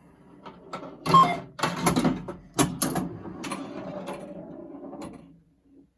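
Pinball machine playfield in play: a string of sharp mechanical clacks and knocks from flippers, solenoids and the steel ball, with a rattling tail that fades out.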